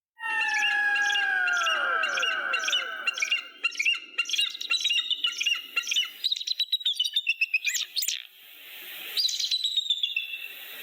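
Bird of prey calling: a quick series of short calls that fall in pitch, then a fast run of short high chattering notes, and a few more calls after a brief pause near the end.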